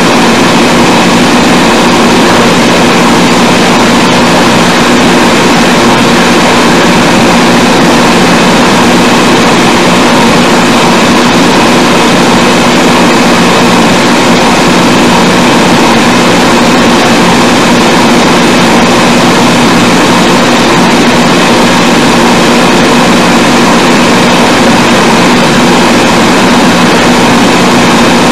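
Loud, steady hiss with a faint steady hum under it, unchanging throughout and with no speech: noise on a poor-quality old sermon recording.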